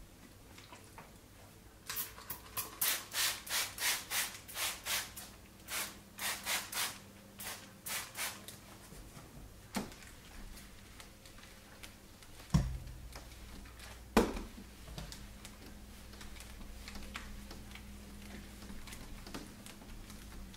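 Hand-pump trigger spray bottle squirting cleaning fluid onto window glass: about fifteen quick hissing sprays in a row over some six seconds. Later come two sharp knocks, the loudest sounds, and then a faint low steady hum.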